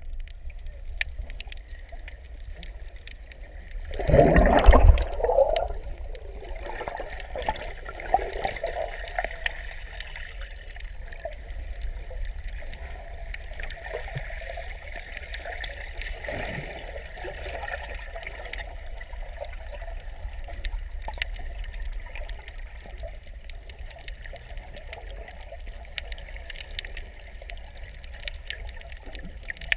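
Underwater sound as picked up by a submerged camera: a muffled, steady water rumble with a constant fine crackle of clicks, and a louder gurgling rush of bubbles about four seconds in.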